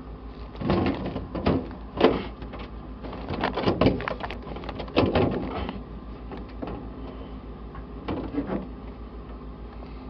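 Plastic evaporator cover panel in a refrigerator freezer being pushed and worked back into place by hand: a run of irregular knocks, scrapes and rattles, sharpest about two and five seconds in, over a steady low hum.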